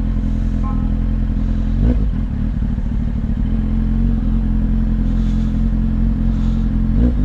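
Motorcycle engine idling steadily at a standstill, with a brief knock about two seconds in and another near the end.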